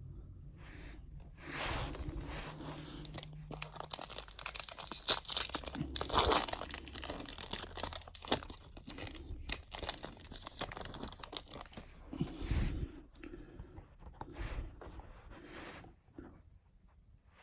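Foil wrapper of a trading card pack being torn open and crinkled, loudest for several seconds in the middle, then a few light clicks and rustles as the cards are handled.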